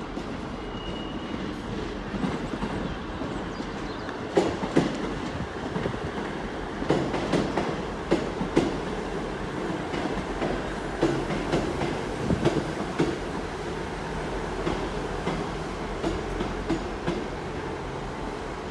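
Class 158 diesel multiple unit running slowly into the platform: a steady rumble with irregular wheel clicks over rail joints and points, starting about four seconds in.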